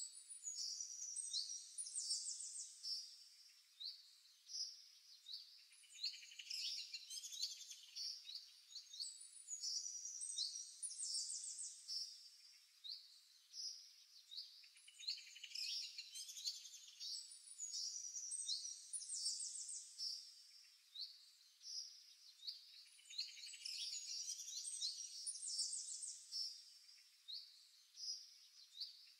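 Several songbirds chirping and trilling in quick, high-pitched, overlapping phrases, faint.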